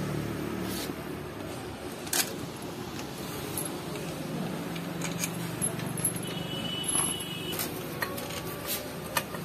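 Scattered metallic clicks and clinks of a spanner on a Bajaj Pulsar NS125's clutch release arm and its fittings, over a steady low background noise.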